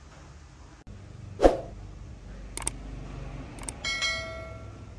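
A dull knock, a few sharp clicks, then a short metallic ring that dies away over about a second, like a small metal object being struck.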